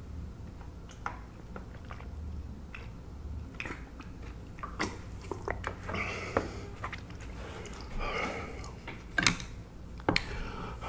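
Close-miked chewing of food: wet mouth sounds with scattered sharp clicks, the loudest a little past nine seconds in.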